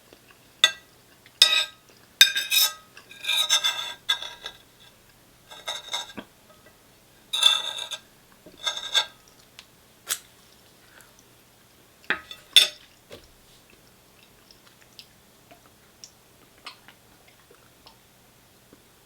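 Cutlery scraping and clinking against a food container, scooping up rice: a run of short, sharp scrapes over the first thirteen seconds or so, then only faint small sounds.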